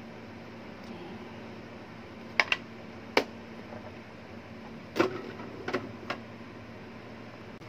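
A handful of short, sharp knocks and clicks of kitchen utensils against a ceramic bowl and a wooden chopping board, singly and in quick pairs from about two and a half seconds in, over a steady low hum.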